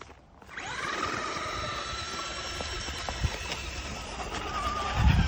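RC off-road truck's motor whining as it spins up and holds at high speed, wheels churning through snow. The whine rises about half a second in and then stays steady and high. A low rumbling thump comes near the end.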